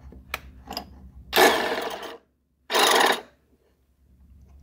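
Piston ring end ground on the abrasive wheel of a ring filer, with the wheel spun backwards to spare the ring's coating: a few light clicks, then two short grinding passes.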